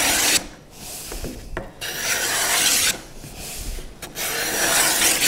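Japanese block plane shaving the edge of a plywood panel to bevel it, about five strokes of a second or so each.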